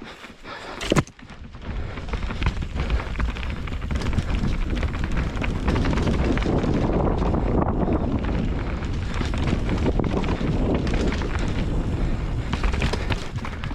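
A sharp knock about a second in, then steady heavy wind buffeting on a mountain biker's camera microphone, with the bike rattling and clicking over a rough trail.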